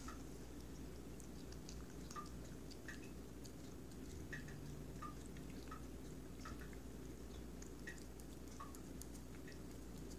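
Domestic cat chewing chicken pieces: faint, irregular wet smacks and clicks of its mouth, a few a second.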